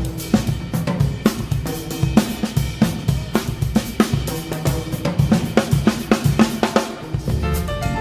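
Soundtrack music with a drum kit playing a busy, steady beat of snare, bass drum and cymbals.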